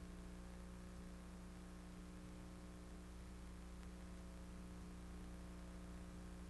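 Steady low electrical hum and buzz with faint hiss, typical of powered-up amplifiers and a PA system idling.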